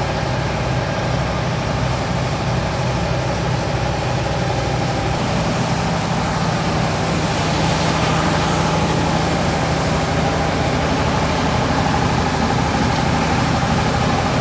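Vespa scooter's single-cylinder two-stroke engine idling steadily, growing a little louder partway through.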